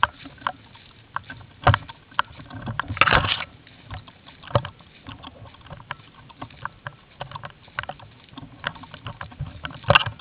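Footsteps crunching through dry leaf litter and snapping twigs while pushing through woodland brush, with irregular cracks and rustles. A denser stretch of rustling comes about three seconds in, and sharp snaps near two, four and a half and ten seconds in.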